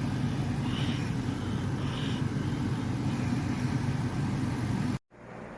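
Steady low mechanical rumble of a running motor or engine. About five seconds in it cuts off abruptly and gives way to a quieter steady hum.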